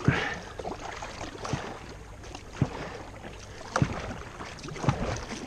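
Kayak paddle strokes: the paddle blade dipping and splashing in the water roughly once a second, over a steady hiss of moving water.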